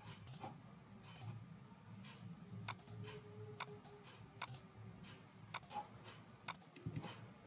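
Computer mouse clicking: a dozen or so faint, irregularly spaced clicks over a low steady hum.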